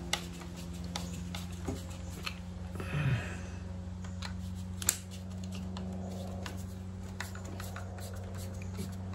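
Scattered small clicks and taps of a screwdriver and small parts being handled over a steady low hum, with one sharper click about five seconds in.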